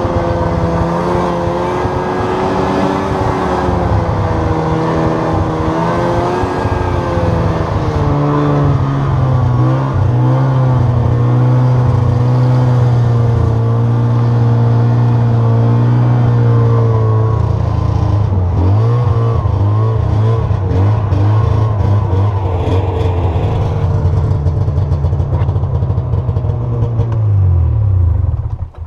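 2001 Ski-Doo Skandic super wide track snowmobile's 500F engine running hard under load in low gear, dragging a heavy log up a steep hill. The engine note wavers up and down, then falls away near the end.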